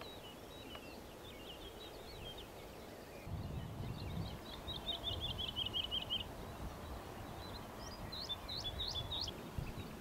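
Small birds chirping and singing, with a fast run of repeated notes about halfway through and a few sharp rising calls near the end. A low rumble joins about a third of the way in.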